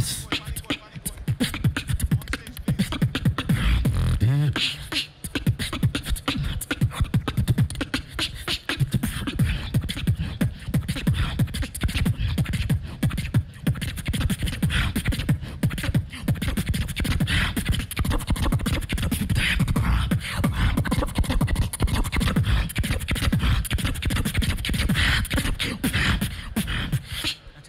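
Human beatboxing amplified through a handheld microphone: a fast, dense stream of vocal kick, snare and hi-hat sounds with heavy bass, and a brief low hummed bass note about four seconds in.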